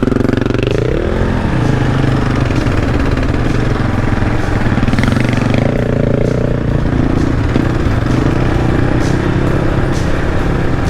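Kawasaki KLR 650's single-cylinder engine running under load off-road, its revs climbing about a second in and then rising and falling with the throttle, with a few light knocks.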